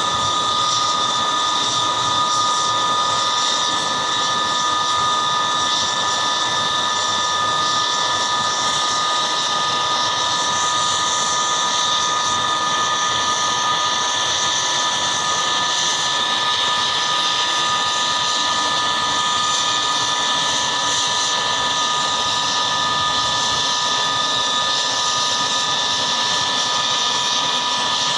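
Boeing CH-47 Chinook helicopter's twin turboshaft engines running on the ground with its rotors turning: a loud, steady, high-pitched turbine whine.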